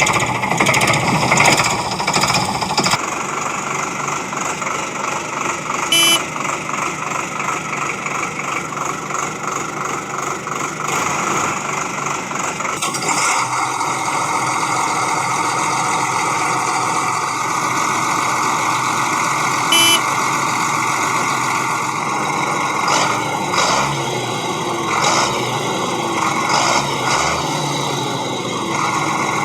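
Steady engine and machinery noise of working vehicles, a backhoe loader and a tractor, which changes character about 3 seconds in and again near the middle. Brief sharp clicks come twice along the way.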